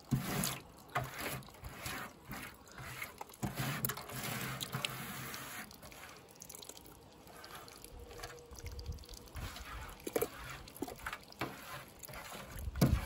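Wet squishing and scraping as hands press mashed tomato pulp against a perforated metal drum lined with a woven plastic sack, with tomato juice dripping and trickling. Irregular small clicks and splats.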